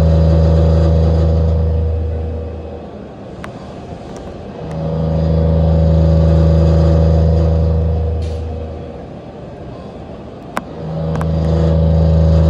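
Takamaz XT-8MY CNC lathe running its machining program: a steady low hum at a fixed pitch that swells for a few seconds and fades again about every six seconds, with a couple of faint clicks between the swells.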